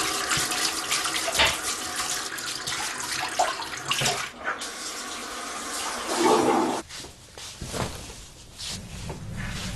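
Tap water running into a sink, with clinks and knocks mixed in, until it stops about seven seconds in; after that come only a few scattered knocks.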